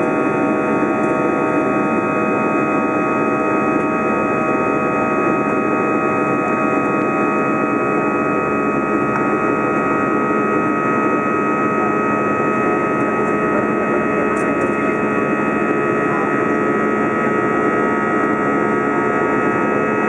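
Airbus A320 jet engines and airflow heard from inside the passenger cabin in flight: a steady drone with several constant whining tones running through it.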